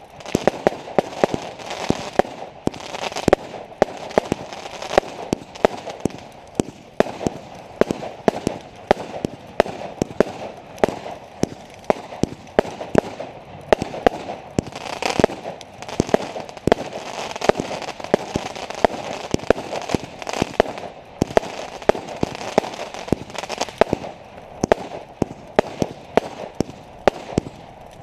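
Fireworks going off in a continuous barrage: many sharp bangs, several a second, over steady crackling.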